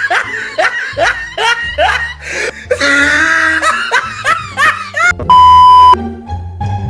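Burst after burst of laughter over background music, then a loud, steady electronic beep lasting under a second, a little after five seconds in.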